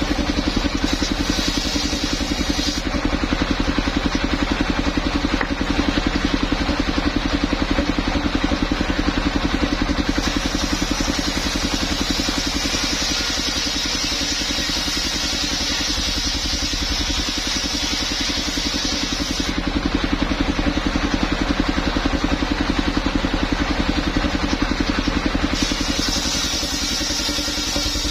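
Engine of a mobile circular sawmill running steadily, with a higher hiss that comes in for several seconds at a time and drops away again, twice in the middle.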